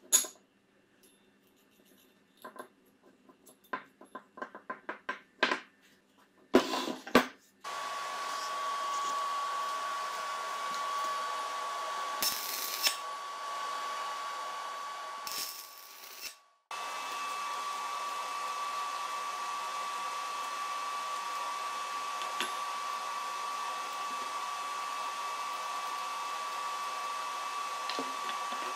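Small metal parts clicking and knocking as a bolt, nut and flat steel bar are handled, then, about eight seconds in, a stick (arc) welder running with a steady hiss and a constant high whine. It stops briefly past the halfway point and then carries on steadily.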